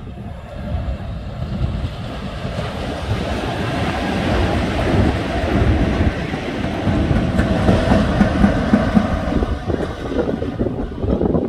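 Three Transnet class 18E electric locomotives running light past at speed, the wheel-on-rail noise swelling to a peak as they go by and easing off near the end.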